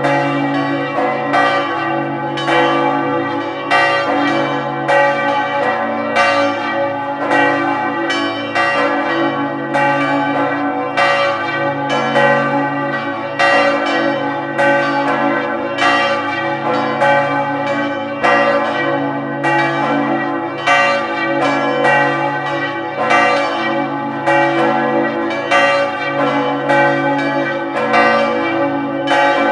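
Several church bells in a bell tower ringing together, with overlapping strokes about once or twice a second over a continuous ringing hum.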